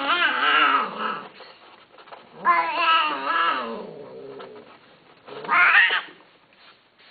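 Cat yowling during mating in long, wavering, drawn-out calls. One call fades about a second in, a second comes about two and a half seconds in, and a shorter rising one comes near the end.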